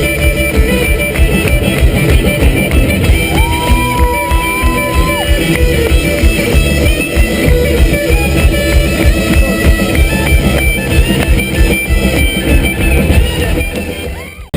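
Loud rock music with guitar over a drum kit keeping a steady beat, fading out quickly near the end.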